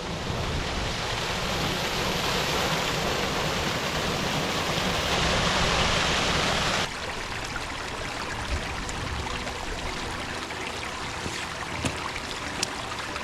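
Hill burn running down a steep slope: a steady rush of water, loudest for the first seven seconds, then after a sudden change a softer rush with a few sharp ticks.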